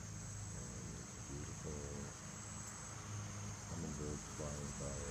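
A steady, high-pitched insect chorus trilling without a break, over a low hum, with brief faint voice-like murmurs twice.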